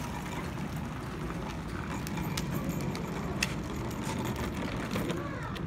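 Hard plastic wheels of a Little Tikes Cozy Coupe ride-on toy car rolling over asphalt as it is pushed: a steady low rumble with scattered small clicks.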